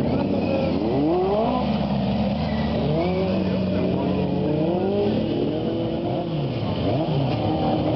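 The small engines of several racing ride-on lawn tractors, revving up and down at once, their pitches rising and falling over one another.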